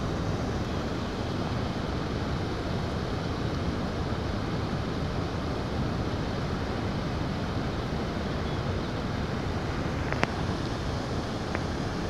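Steady rushing noise of wind buffeting the microphone over a flowing, flooded river. One sharp click about ten seconds in.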